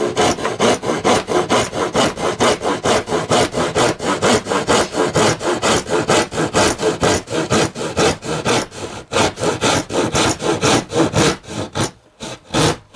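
Small hand saw cutting through a model railway's wooden baseboard with quick back-and-forth strokes, about four a second, with a short pause near the end.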